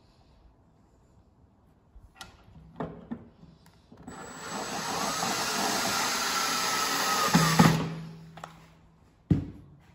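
Cordless drill driving a screw into a drawer bottom: the motor runs for about four seconds with a whine that rises and then holds, and stops with a clunk as the screw seats. A few light clicks come before it and a single knock near the end.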